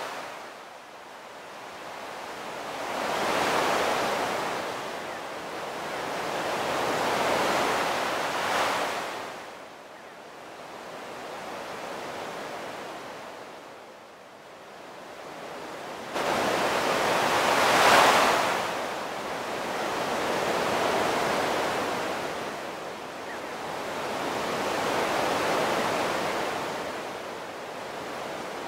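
Sea waves washing ashore, the surf swelling and ebbing every few seconds. It jumps suddenly louder about sixteen seconds in, and the loudest wave comes around eighteen seconds.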